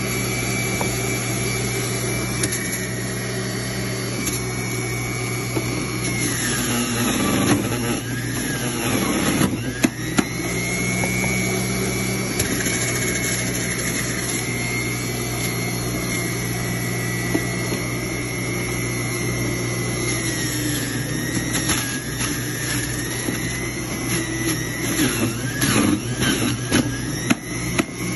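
Electric centrifugal juicer motor running with a steady high whine over a low hum, the whine dipping in pitch twice as apple and orange pieces are fed in and ground, then picking back up. A few short knocks near the end.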